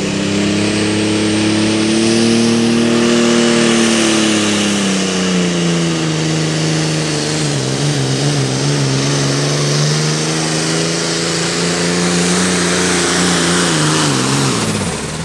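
John Deere pro farm pulling tractor's diesel engine at full throttle, dragging the weight-transfer sled. Its pitch rises at first, then sags and wavers under the growing load, and drops sharply near the end as the throttle comes off.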